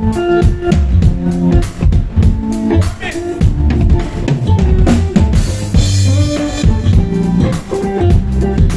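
Live band jamming: a drum kit playing a busy groove of kick, snare and rimshots over strong bass notes and other pitched instruments, with a cymbal wash about five and a half seconds in.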